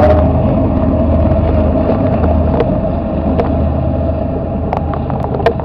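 Freight train's diesel locomotives passing close by: a loud, steady engine rumble with a droning tone. Several sharp clicks from the wheels over the rail joints come in the second half as the lead tank cars follow.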